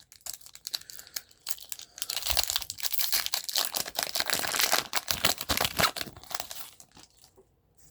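Foil wrapper of a Pokémon trading card booster pack crinkling as it is torn open, a dense run of quick crackles lasting several seconds.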